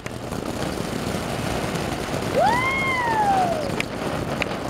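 Ground fountain firework spraying sparks with a steady hiss that grows louder, with a few sharp crackles. About halfway through a long tone rises and then slowly falls.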